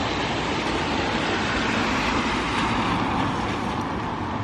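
Steady rushing hiss of rain and traffic on a wet street, swelling slightly midway and easing toward the end.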